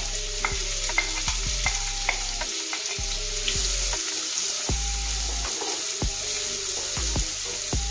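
Chopped onions sizzling in hot oil in a frying pan, with a spatula repeatedly tapping and scraping against the plate and pan as the onions are knocked off the plate and stirred.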